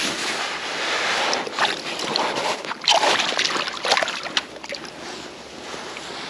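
Water splashing and sloshing in the rocky shallows as a landed brown trout is held and handled by hand, with several sharper splashes about one and a half, three and four seconds in. It settles to quieter water sounds from about four and a half seconds.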